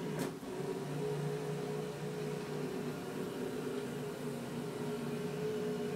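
Heathkit Hero Jr robot's motor drive running steadily with a whirring hum as the robot rolls across the carpet, with a short click just after the start.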